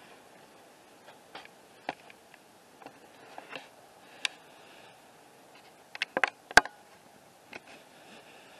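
Scattered sharp clicks and ticks over a faint steady hiss, with a quick cluster of louder clicks about six seconds in.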